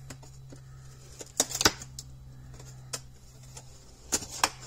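Cardboard box being opened by hand: a few sharp crackles and clicks as the top flap is worked open, about a second and a half in, once near three seconds and again near the end. A steady low hum runs underneath.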